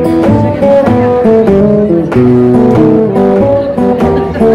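Metal-bodied resonator guitar playing a Delta blues instrumental passage: a steady run of picked single notes over bass notes, with no singing.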